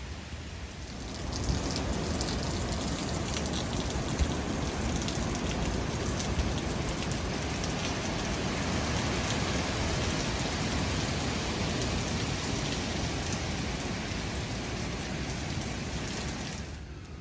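Rain falling steadily, a dense even hiss; it swells about a second in and drops away abruptly near the end.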